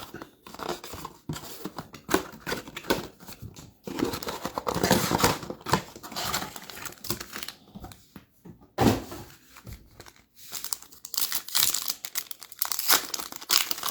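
Packaging of a Select basketball card blaster box being opened by hand: plastic and card pack wrappers crinkling and tearing in irregular bursts, with one sharper rip about nine seconds in.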